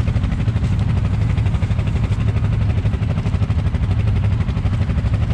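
Off-road vehicle's engine running steadily at an even speed, heard up close from on board.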